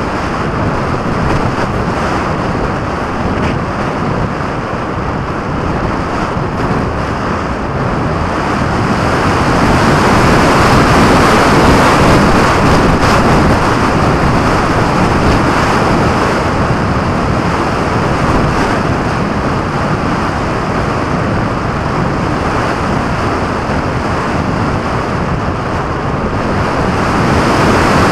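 Wind rushing over the microphone of a camera mounted under the wing of a radio-controlled model plane in flight. It is a loud, steady rush that swells about ten to thirteen seconds in and again near the end.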